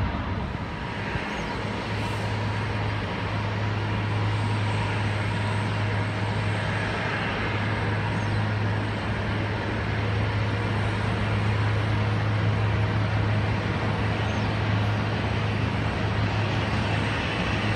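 Steady jet-aircraft noise at an airport, with a steady low hum that sets in about a second in and holds.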